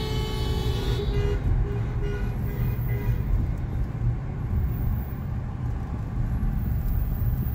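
A car horn sounding for about a second, then a few shorter, fainter toots, over the steady low rumble of a moving car heard from inside the cabin.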